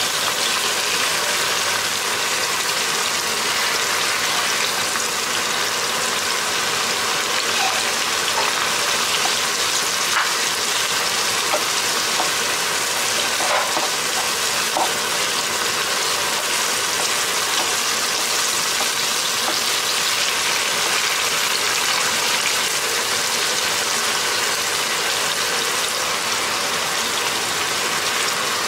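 Ground beef and onions frying in oil in a pan, a steady sizzle.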